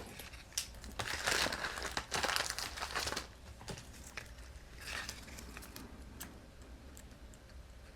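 Cut paper craft pieces being handled and shuffled: irregular rustling and crinkling with small taps, busiest in the first three seconds, then fainter, with one more rustle about five seconds in.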